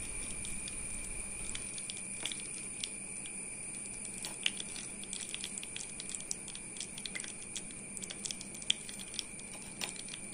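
Faint irregular crackles and ticks from beeswax melting in a steel cup over a low gas flame, over a steady faint hiss. The ticks come more often from about four seconds in.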